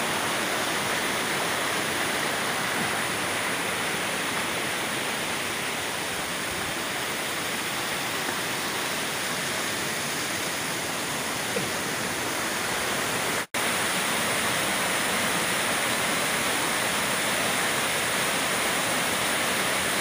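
Waterfall cascading over rock slabs, a steady rushing of white water. The sound cuts out for a split second about two-thirds of the way through.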